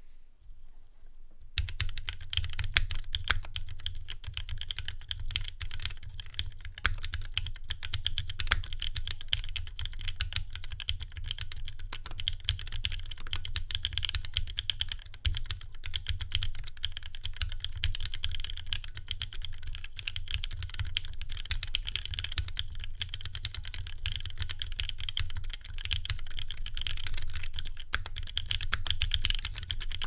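Fast, steady typing on a 60% mechanical keyboard built with lubed NovelKeys Cream linear switches on a zebrawood plate in a Mekanisk Fjell case, with GMK keycaps. The keystrokes begin about a second and a half in and run on as a dense, unbroken stream of clacks.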